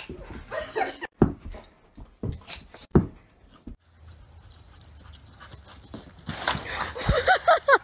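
A dog playing on a carpeted floor, with a few sharp knocks and scuffles. After a cut, steady outdoor wind noise, then a dog's quick run of short yelps near the end.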